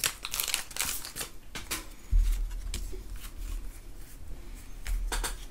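Pokémon trading-card booster packs and cards handled on a table: a run of light crinkles of foil wrapper and quick card flicks and clicks. A low rumble sets in about two seconds in.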